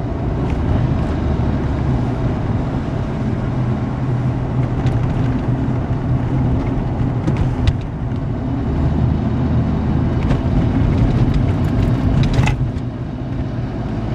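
Truck engine and road noise heard from inside the cab while driving at speed: a steady low drone, with a short click a little past halfway and a brief sharper noise near the end.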